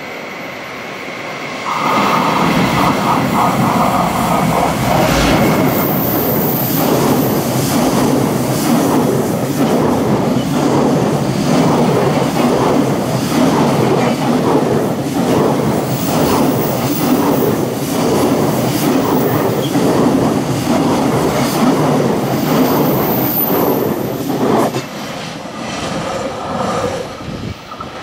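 Long JR Freight container train passing at speed close by: the noise comes in loudly about two seconds in, then a long run of fast, rhythmic clattering of wagon wheels over the rail joints. The noise drops sharply about three seconds before the end as the last wagons pass.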